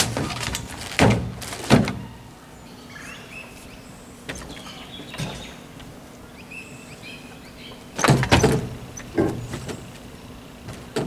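Knocks and clatter of an old wooden stepladder being set up in a pickup truck's bed: a burst of thuds in the first two seconds, then another run of knocks about eight seconds in.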